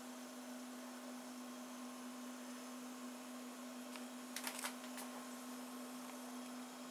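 Steady electrical hum and hiss of recording background noise, with a quick cluster of faint clicks about two-thirds of the way through and one more a moment later.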